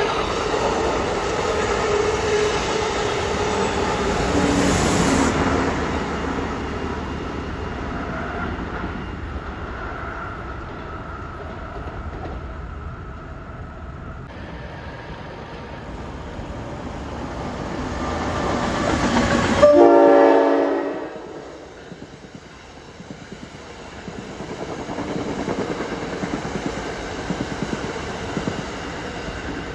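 Passenger train passing, with rail and wheel noise and its horn sounding. The sound builds to a loud horn blast about twenty seconds in that cuts off abruptly, then a quieter rumble follows.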